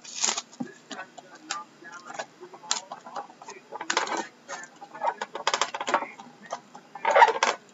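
A stack of thick hockey trading cards being shuffled by hand, card edges and wrapping rustling in a run of irregular small clicks, with louder rustles about 4, 5.5 and 7 seconds in.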